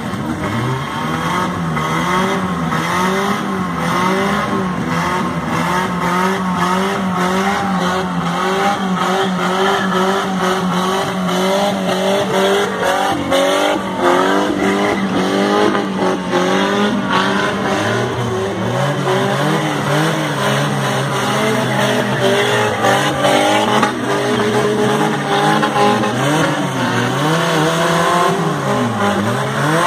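A race car's engine revving up and down again and again as it slides in circles on loose dirt, over the steady hiss of its tyres skidding. The revving grows wider in its swings in the second half.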